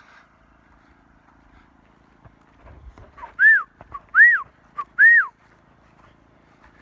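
A person whistling three short notes about a second apart, each rising then falling in pitch and led by a brief lower note, to call horses over.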